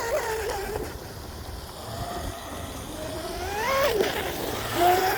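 Electric brushless motor of a mini mono RC boat whining as it runs across the water, its pitch climbing with throttle about three seconds in, dropping sharply just before four seconds, then climbing again near the end.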